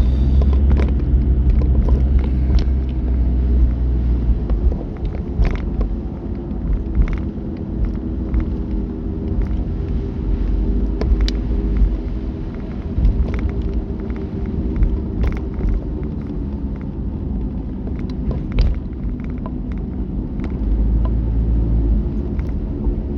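Car cabin while driving in typhoon winds: steady road and engine noise under a heavy low rumble that swells for the first few seconds and again near the end as gusts buffet the car. Scattered sharp ticks sound throughout.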